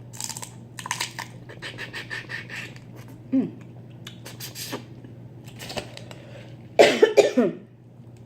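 Close-miked eating of crawfish: a run of wet smacking and sucking clicks, with a short falling vocal sound a little past three seconds in. Near the end comes a brief, loud, throaty vocal noise, a cough or burp.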